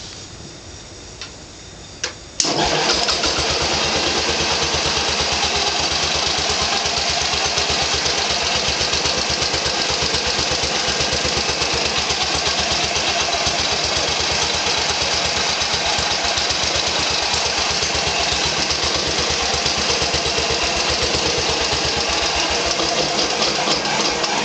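10 hp Briggs & Stratton single-cylinder engine on a Simplicity 7010 garden tractor, started with the key. It catches abruptly about two and a half seconds in after a couple of faint clicks, then runs steadily at an even speed after its carburettor has been cleaned and adjusted.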